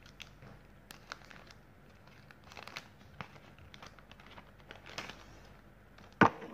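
Thin plastic bag crinkling and rustling as it is cut open with scissors, in many small crackles. A single much louder, sharp crackle comes near the end.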